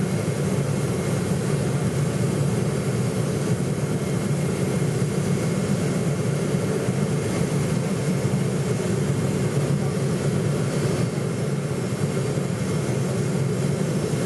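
Steady jet noise heard inside the cabin of a Boeing 747 on final approach, from its Rolls-Royce RB211 turbofans and the airflow past the fuselage. It is an even, deep rumble with faint high whining tones above it.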